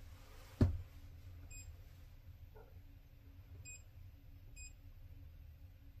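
Low steady hum of a solar inverter idling with no load, with one sharp click about half a second in and three short high electronic beeps a second or two apart.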